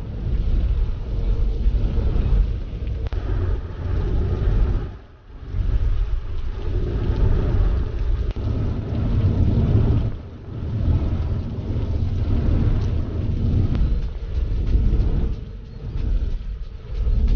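Car road noise while driving: a loud, low rumble that fluctuates and dips briefly a few times.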